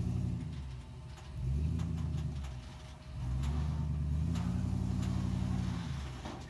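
Engine of a rolled-over Ford Bronco revving in three pushes, the last held for a few seconds, as the truck is driven forward and up onto a car-transport trailer.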